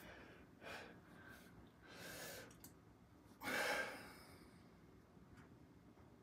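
A man breathing hard as he flexes into bodybuilding poses. There are a few short exhales, and the loudest and longest is a forceful breath out about three and a half seconds in.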